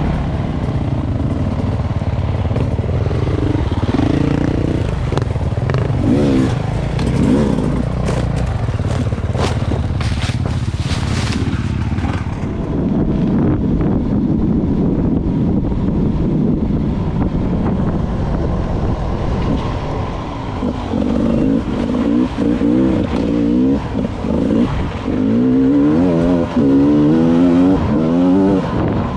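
Two-stroke engine of a Beta 300 enduro motorcycle being ridden, revving up and down with the throttle. The revs rise and fall more quickly in the last several seconds. There are a few knocks and scrapes about ten seconds in.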